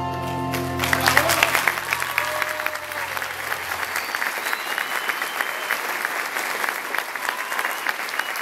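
The music ends on a held chord in the first second, its low notes fading out over the next few seconds. An audience breaks into applause, and the clapping carries on steadily after the music is gone.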